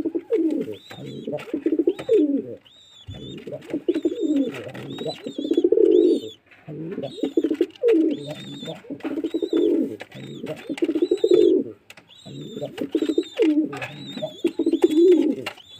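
Pigeons cooing: repeated low, wavering coo phrases with short breaks between them. A thin, high repeated chirping runs over the cooing.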